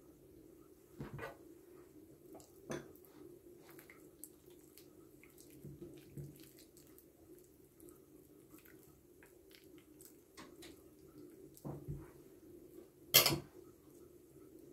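A table knife spreading cheese spread over raw chicken meat on a plate: scattered soft, wet clicks and taps of the blade, with one sharper knock near the end. A steady low hum runs underneath.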